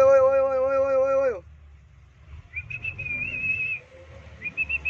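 A bus horn sounds with one steady blast for about the first second and a half. Then come two short trilling whistle blasts, the second near the end, over the low hum of the bus engine.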